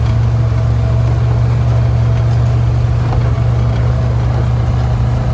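Engine running steadily with a loud low drone, typical of a tractor heard up close.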